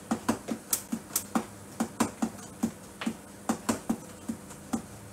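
Long fingernails tapping on a tablet's touchscreen, a quick uneven run of sharp clicks at about four a second.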